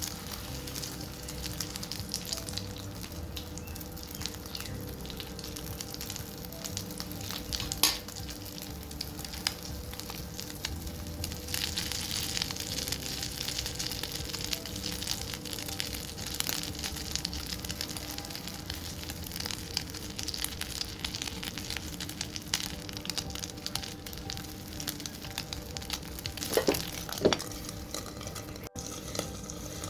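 Food frying in a pan, a steady sizzle and crackle that grows louder and brighter about a third of the way in. A few sharp knocks come from a utensil against the pan: one near the start and a couple near the end.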